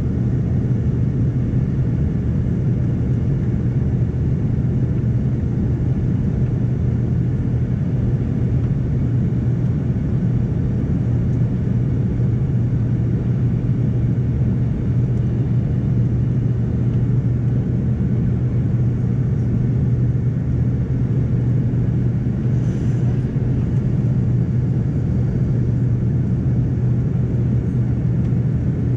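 Steady low drone inside the cabin of an Embraer 145 regional jet climbing after takeoff: its two rear-mounted Rolls-Royce AE 3007 turbofans and the rush of air over the fuselage, with no change in level.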